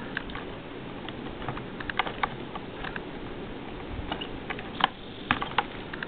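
Light clicks and taps of fingers handling small plastic connectors, wires and a battery pack on a model helicopter, with a few sharper clicks about two seconds in and again near the end, over a steady low hiss.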